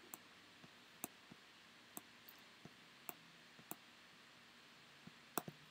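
Faint, scattered clicks of a computer mouse, about ten at irregular intervals over near-silent room tone, with a louder close pair near the end.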